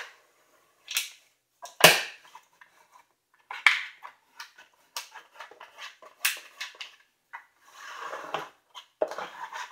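Plastic card rubbed and scraped over adhesive contact paper as a squeegee to press the lining flat inside a wooden drawer, in a string of short, irregular strokes, the loudest about two seconds in.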